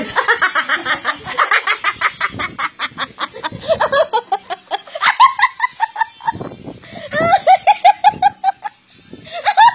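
A woman laughing hard in long runs of quick, high-pitched pulses, breaking off briefly near the end before starting again.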